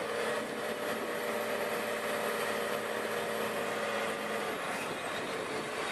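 New Holland tractor's diesel engine running steadily under load, pulling a plough through soft, bogged-down ploughed ground.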